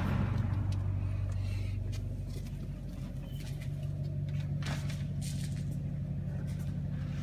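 Vintage Pepsi vending machine's refrigeration compressor and fan running with a steady low hum, with a few faint clicks about halfway through.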